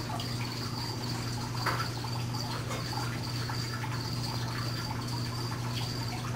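A cricket chirping, a high-pitched chirp repeating in a steady rhythm, over a steady low hum.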